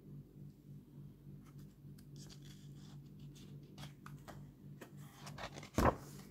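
Paper rustling and small clicks as a picture book's pages are handled, then a louder, brief swish near the end as a page is turned. A faint steady low hum lies underneath.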